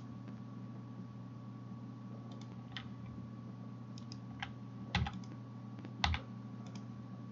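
Computer keyboard keystrokes and clicks, scattered single taps, with two louder, thuddier strokes about five and six seconds in, over a steady low hum.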